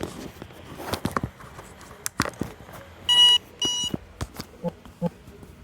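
Two short electronic beeps, about half a second apart, with scattered sharp clicks and knocks before and after.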